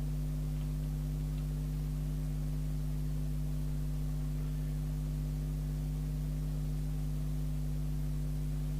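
Steady low electrical hum with several overtones, unchanging throughout, typical of mains hum on a workbench.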